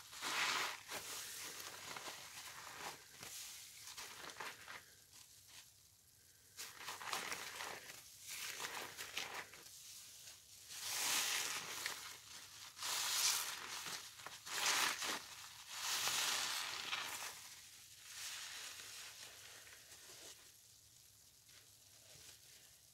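Wet sponges full of pine-cleaner suds being squeezed, the foam crackling and squelching in a run of squeezes a second or two long with quieter gaps between.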